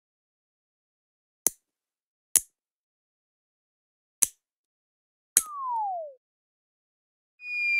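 Four sharp single clicks, spaced a second or two apart: snipping sound effects of nail nippers cutting through a thick toenail. The last click is followed by a short tone sliding down in pitch, and a steady high tone begins near the end.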